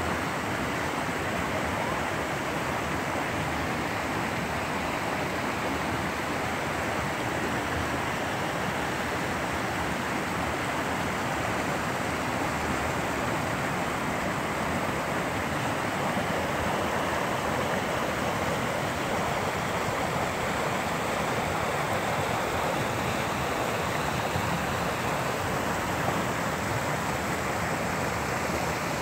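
Shallow brook water rushing steadily over rocks and along shelves of ice, with small falls upstream.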